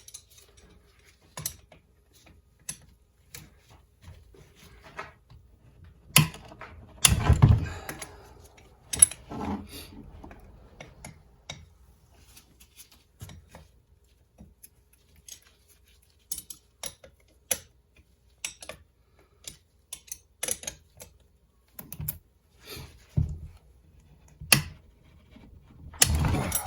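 Metal hand tools and engine parts clicking and clinking irregularly as a wrench works the nuts off a Honda CR250 two-stroke cylinder, with a few heavier clunks, the loudest about seven seconds in and near the end.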